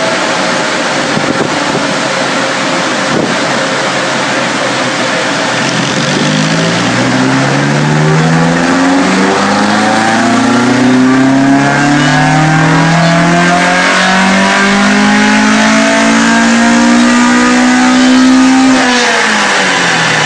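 Ford Escort RS2000 16v's four-cylinder engine on individual motorcycle (Suzuki GSX-R) throttle bodies, run under load on a rolling road and heard at the exhaust. After several seconds of rough, noisy running, the revs climb steadily for about twelve seconds in a power run, then the throttle is shut and the revs fall away quickly near the end.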